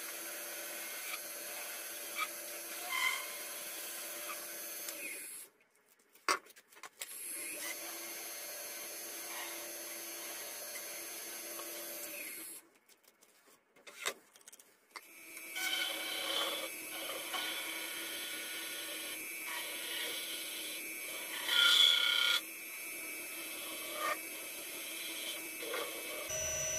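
Woodturning lathe running with a steady whine while a hand-held cutting tool scrapes a spinning brass bar. The sound breaks off twice for a second or two, and there is a louder burst of cutting about three-quarters of the way through.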